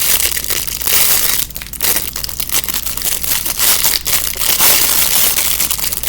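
Plastic packaging crinkling and crackling close up as it is handled and pulled open, with a brief lull about a second and a half in.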